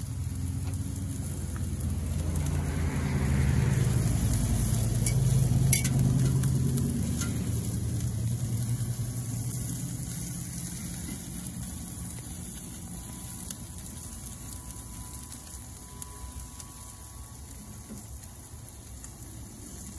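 Chicken breasts and asparagus sizzling on the hot grates of a Big Green Egg kamado grill, a steady hiss. A sharp click about six seconds in, and a low rumble that swells over the first few seconds and then fades.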